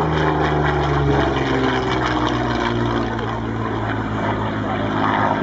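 Yakovlev Yak-3 fighter's American Allison V-1710 V-12 piston engine and propeller droning as it flies past. The pitch falls over the first few seconds, then holds steadier.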